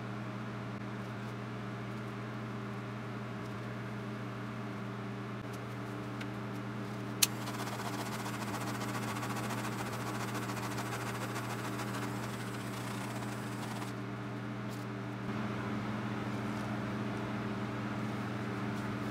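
Cup turner motor humming steadily as it turns a tumbler freshly coated in epoxy resin. About seven seconds in, a handheld butane torch clicks alight and its flame hisses for about seven seconds as it is passed over the wet resin.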